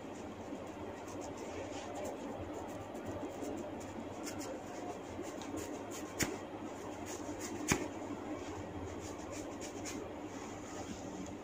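Two sharp joint pops from a neck being cracked by hand, about a second and a half apart near the middle, over faint rubbing and scratching of hands on skin and a steady room hum.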